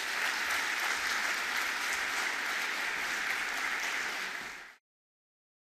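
Audience applauding steadily after a speech, the clapping cutting off suddenly near the end.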